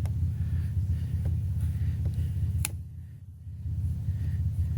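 Vehicle engine running with a steady low rumble, a single sharp click a little past halfway, and a brief dip in level just after it.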